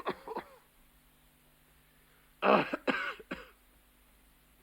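A person coughing in fits: a couple of short coughs right at the start, then, a little past halfway, a fit of about four coughs in quick succession.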